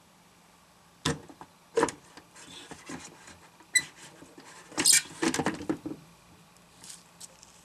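A glass blender jar being handled and set on its base: a few sharp knocks and clatters, with the loudest cluster about five seconds in. The blender motor is not running.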